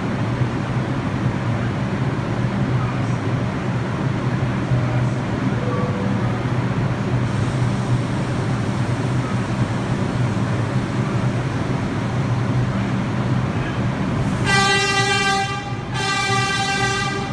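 Steady low hum of an R62 subway train standing at a terminal platform, then near the end two long blasts of the train's horn at one steady pitch.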